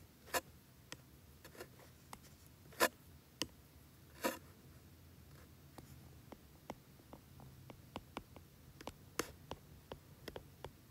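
Stylus tip tapping and clicking on a tablet's glass screen during handwriting: a few sharper taps in the first half, then a run of quick small ticks as a word is written out.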